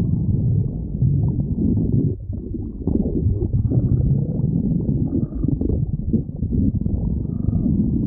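A hungry human stomach growling, heard up close: an almost unbroken low, gurgling rumble that wavers in strength, easing off briefly about two seconds in.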